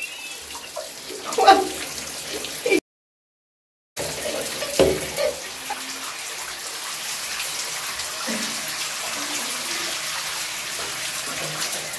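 Running water splashing steadily as a dog is rinsed under a shower stream. The sound drops out completely for about a second near the start.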